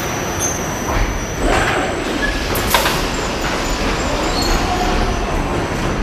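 Car production line with industrial robots working in a body cell: a steady machinery din with a faint high whine, a burst of hiss about a second and a half in and a sharp click near the middle.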